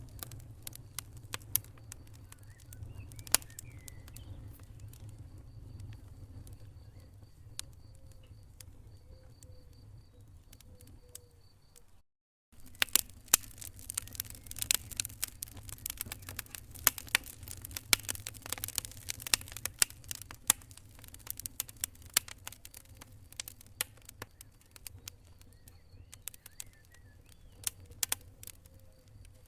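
Wood fire crackling in a fireplace: irregular sharp pops and snaps over a low, steady rumble. The sound cuts out for a moment about twelve seconds in, then the crackling comes back denser.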